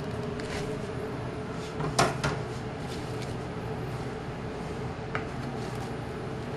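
Printed circuit boards being handled: two sharp clacks about two seconds in as one board knocks against the others, and a lighter click about five seconds in.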